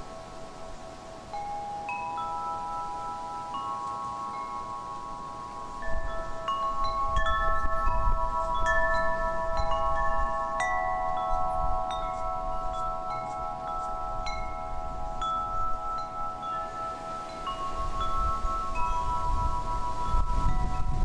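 Chime tones ringing in slow succession, a new note struck every second or so while earlier notes ring on and overlap. A low, uneven noise joins underneath about six seconds in.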